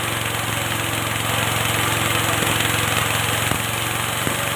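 A bran-making and grass-chopping machine running steadily, with an even hum under a loud rushing noise and a few short knocks.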